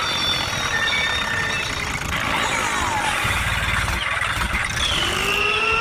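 A small engine running steadily, with a pulsing throb about halfway through and thin high tones gliding up and down over it.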